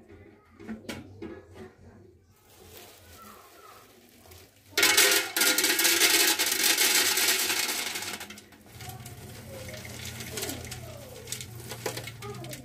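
Coffee beans poured from a bag into the stainless-steel drum of a manual coffee roaster: a loud, dense pour starting about five seconds in, lasting some three and a half seconds and tailing off, with small handling clicks before and after.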